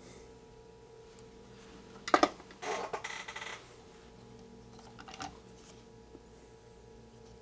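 A sharp clack about two seconds in, then about a second of light metallic rattling, like small parts or tools clattering on a workbench. A couple of faint clicks follow a little later.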